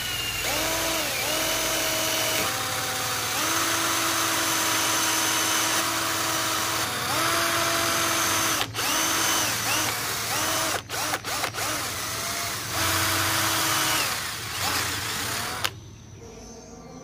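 Handheld electric drill boring small holes through the wooden fork tips of a slingshot, run in a series of bursts, its motor whine rising as it spins up and falling away each time the trigger is released. Around the middle come several short quick pulses, and the drilling stops about a second before the end.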